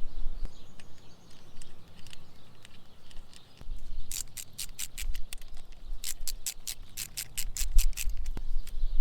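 Ratchet with an 8mm socket clicking in two quick runs of about six clicks a second, the second run a little past the middle, as the oil filter cover bolts are run back in.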